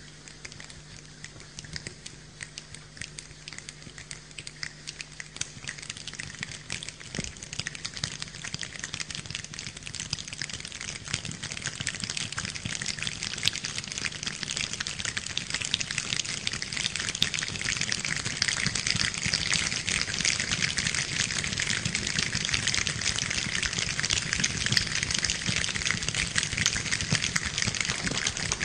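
A choir imitating rain with their hands held up to microphones: many hands rubbing and clicking together into a dense, rain-like patter of fine ticks that grows steadily louder.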